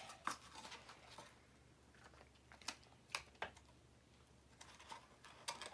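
Faint handling of a cut-off rubber balloon being stretched over the end of a cardboard toilet-paper roll: a few scattered small clicks and taps.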